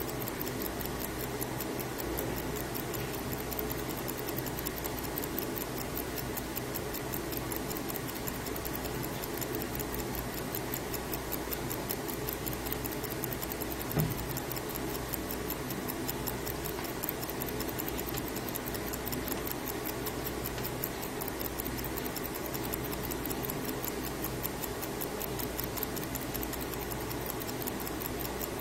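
Antique mechanical watch movements ticking in an even, rapid rhythm over a steady background hiss. A single brief low knock about halfway through.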